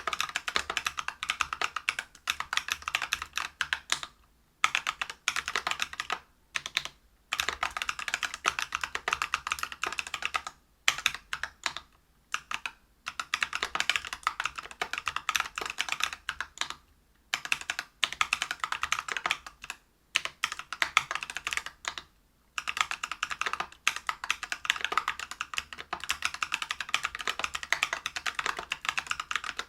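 Typing on a Whale 75 mechanical keyboard with lubed Neapolitan Ice Cream 63.5g tactile switches, a brass plate and Geekark PBT keycaps. Rapid keystrokes come in runs of a few seconds, broken by short pauses.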